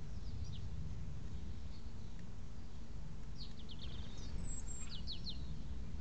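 A small songbird calling: a faint couple of high chirps near the start, then a quick run of short, high, falling notes about three and a half seconds in and a few more a second later, over a steady low rumble.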